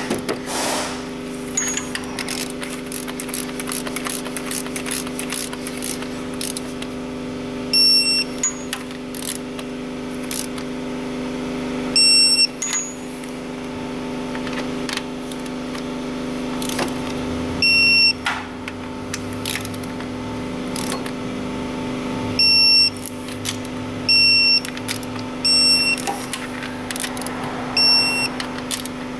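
Digital torque wrench beeping as the water pump bolts are tightened, short identical high beeps each time the set torque is reached, about eight of them and coming closer together in the second half. Scattered clicks fall between them over a steady hum.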